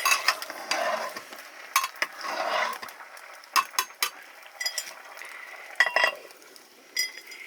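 Metal pots, dishes and utensils clinking and scraping, with a string of sharp clinks that ring briefly.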